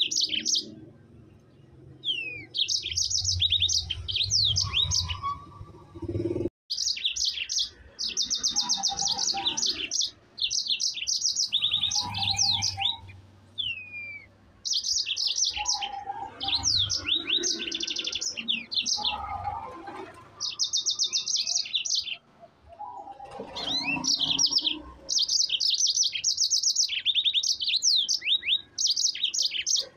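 Yellow-fronted canary (Mozambique canary) singing vigorously: high, fast trilled phrases and quick chirps in long rolling bursts of a few seconds each, with brief pauses between.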